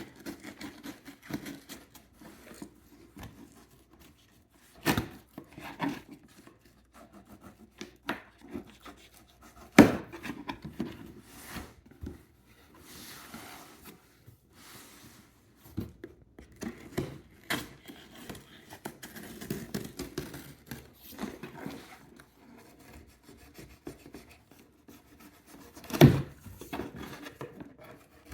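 Cardboard box being opened and handled by hand: irregular scraping, rubbing and rustling, with scattered knocks, a sharp one about ten seconds in and another near the end.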